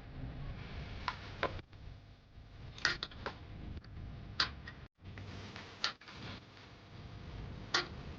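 Scattered sharp clicks and knocks of hand tools on metal parts, one every second or two, over a low steady rumble.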